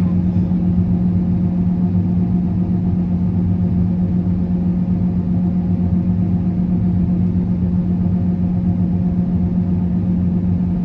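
Combine harvester engine running at a steady pitch, a constant, unchanging drone.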